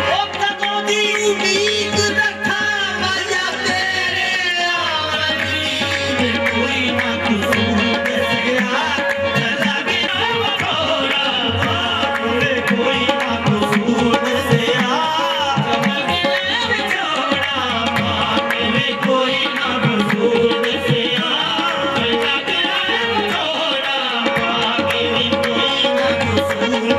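Live qawwali music: harmonium and hand drum backing lead and chorus singers.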